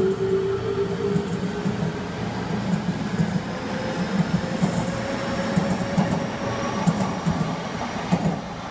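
Odakyu 2000 series electric commuter train pulling away from the station, its wheels clacking over the rail joints while the traction motor whine rises slowly in pitch as it gathers speed. The last few clacks near the end are the loudest, as the final car passes.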